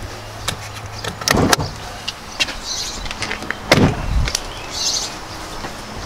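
Clicks, knocks and scuffs of someone climbing out of a pickup's cab and moving around the truck, with one heavier thump a little under four seconds in, over a steady low hum.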